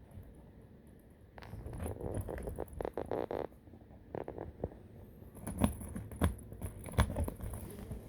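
A poodle scrambling about inside a pet oxygen box, a run of irregular scrapes, taps and knocks against its walls, with a few sharper knocks in the second half.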